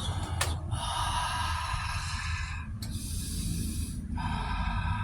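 A person breathing heavily, three long, hissing breaths in a row, the middle one shorter and higher-pitched.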